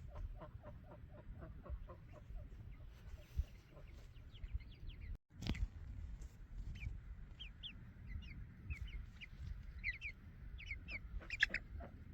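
Chickens clucking softly in a quick run of short calls, then many short, high falling peeps from young birds, over a low rumble.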